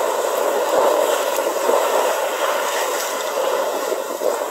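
Steady rush of water and wind as a sailing yacht moves through open sea, with no engine heard; it cuts off abruptly at the end.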